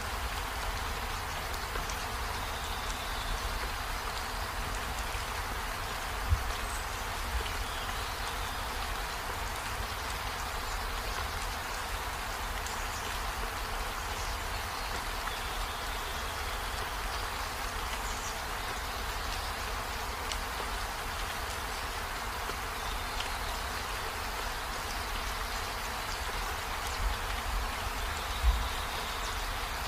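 Steady even hiss of background noise, with a sharp knock about six seconds in and a few soft knocks near the end.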